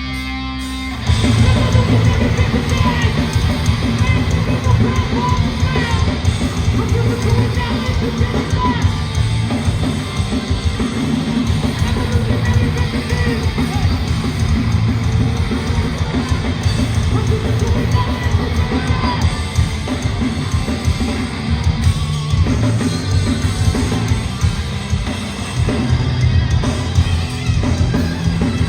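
Live hardcore band playing at full volume: distorted electric guitars, bass and a pounding drum kit, with the whole band crashing in about a second in after a held chord.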